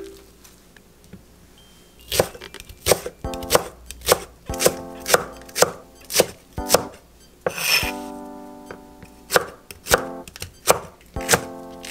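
Chef's knife chopping vegetables on a wooden end-grain cutting board. The blade strikes the board in sharp, even knocks about two a second, starting about two seconds in. Soft background music plays underneath.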